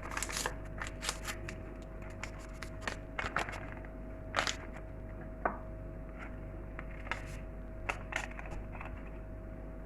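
Light, irregular taps and rustles of a hand sieve being shaken to sift baking powder into flour, over a faint steady hum.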